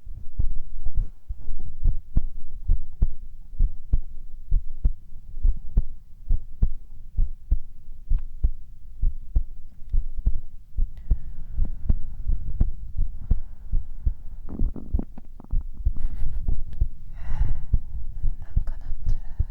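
A man's heartbeat recorded close up: a steady run of low thumps, with a faint higher hiss near the end.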